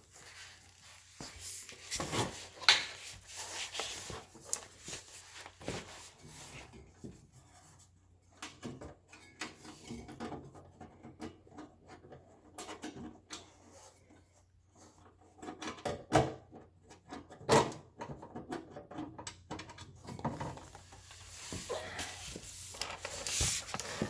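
Hands fitting a refrigerator's fan motor housing back into place: scattered clicks, knocks and rubbing of plastic and thin sheet-metal parts, with a few sharper knocks about three seconds in and twice around the middle.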